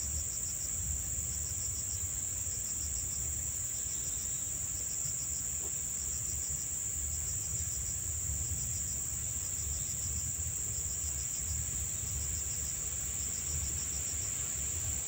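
Insects, crickets among them, calling steadily: a continuous high-pitched drone with a short trilled chirp of a few quick pulses repeating about once a second.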